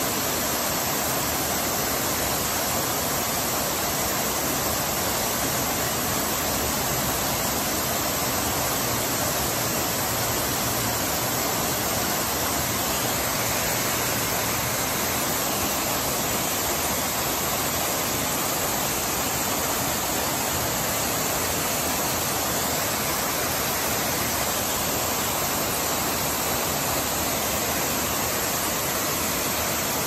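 Tiered waterfall cascading over rock ledges into a pool: a steady, unbroken rush of falling water.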